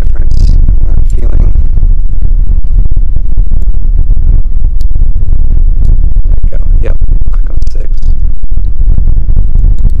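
Wind buffeting the microphone: a loud, steady low rumble throughout, with a few faint ticks from the pick working in the padlock.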